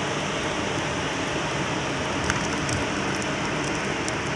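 Steady rushing background noise of a tanker ship's machinery on deck, with a few faint taps.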